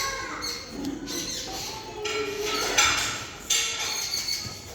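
Cat chattering at birds: bursts of quick clicking and squeaky chirps, the 'crackle' a cat makes when excited by prey it can't reach.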